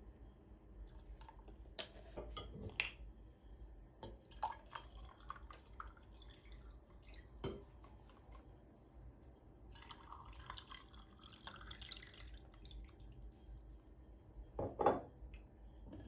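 Scattered light clicks, taps and knocks of objects being handled. There is a couple of seconds of steady hiss about ten seconds in, and the loudest knock comes near the end.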